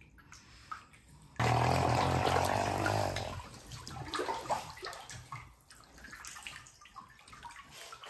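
Water in a wooden bathtub rushing and bubbling loudly. It starts suddenly about a second and a half in and dies down after a couple of seconds into uneven sloshing and small splashes as a pug wades through it.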